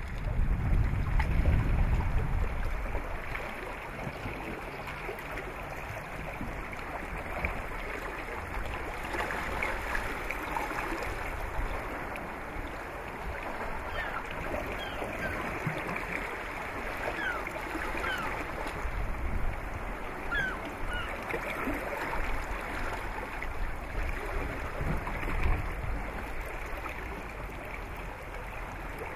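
Waterside ambience of wind and water: a steady rush with wind buffeting the microphone, strongest in the first few seconds. Between about a quarter and two thirds of the way through come a few faint, short rising chirps.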